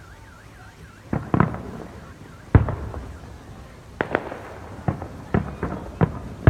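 Fireworks exploding: about ten sharp booms at uneven intervals, the loudest about two and a half seconds in, with a quick cluster of bangs in the second half, each trailing off in a short rumble.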